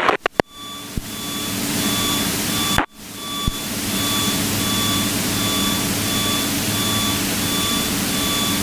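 Steady drone of a Piper PA-32's piston engine and airflow in the cabin, with a short electronic beep repeating at an even pace, a little slower than once a second. The sound briefly drops out near the start and again about three seconds in.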